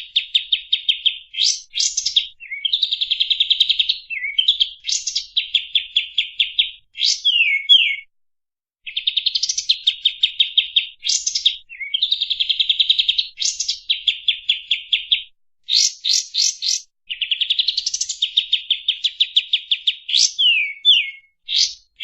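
Kapas tembak singing its rapid 'tembak' song: tightly packed trills of fast repeated chirps, in loud phrases of a second or two. Short pauses separate the phrases, and there is a longer break of about a second partway through.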